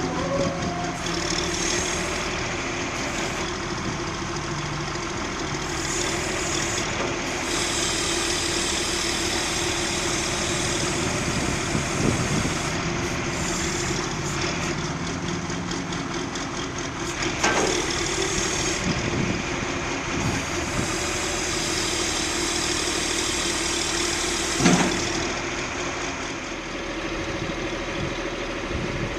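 1996 John Deere 710D backhoe loader's diesel engine running steadily, with two brief louder sharp sounds in the second half.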